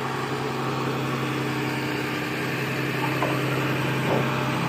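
A vehicle engine idling steadily, with a couple of faint light clicks near the end.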